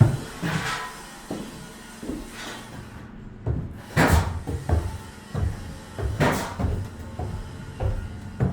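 Irregular knocks and thuds of construction work, a few a second, with sharper, louder hits about half a second in, about four seconds in and again about six seconds in.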